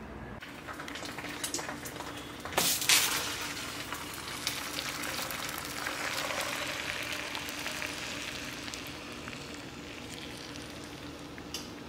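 Food frying in a hot pan: a crackling sizzle that flares up sharply about two and a half seconds in, then eases off slowly.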